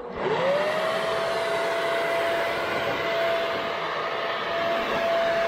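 Handheld electric leaf blower switched on: its motor whine rises quickly to a steady high pitch over the rush of air as it blows debris off the sawmill track.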